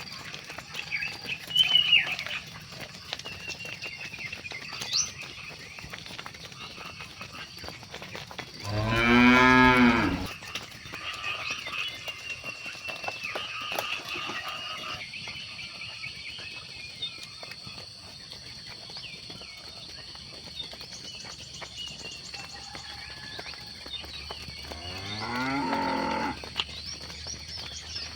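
Cows mooing twice: one long, loud moo about nine seconds in and a quieter moo near the end, with short high chirps in between.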